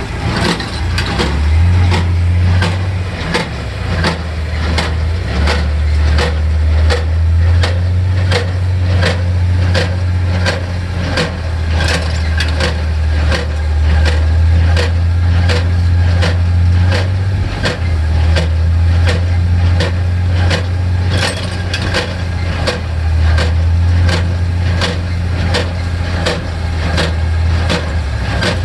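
Gas John Deere 3010 tractor's four-cylinder engine running under steady load, driving a Case IH 8545 inline small square baler whose plunger knocks in a steady rhythm, somewhat more than once a second.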